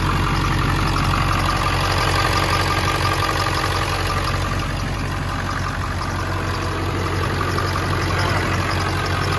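Ford 7.3L Power Stroke turbo diesel V8, at just over 400,000 miles, idling steadily under the open hood with a rapid, even clatter.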